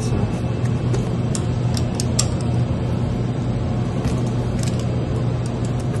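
Steady mechanical-room hum with a strong low tone, and a few light metallic clicks from a wrench loosening the bolts of a pump's split rubber shaft coupling.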